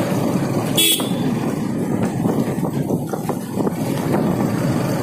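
Suzuki GS150R motorcycle's single-cylinder engine running under way, mixed with steady road and wind noise as the bike rides a rough road. There is a brief sharp rattle about a second in.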